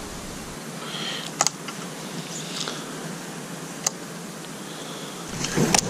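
Dry brush and twigs rustling against the camera operator, with a few sharp snaps and a louder rustle near the end, over a steady outdoor hiss.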